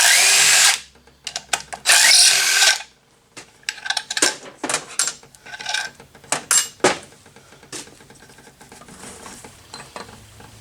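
Power driver spinning out two 8mm bolts on an engine's flywheel cover, in two short bursts, followed by several metallic clicks and clinks as the bolts and tool are handled.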